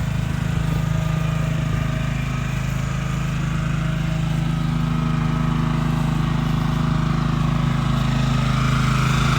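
The engine that drives the hydraulic pump on a portable cattle chute, running steadily at about half throttle.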